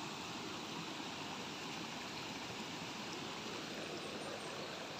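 Muddy rainwater runoff flowing steadily along a flooded dirt footpath and over stones, a continuous sound of shallow moving water.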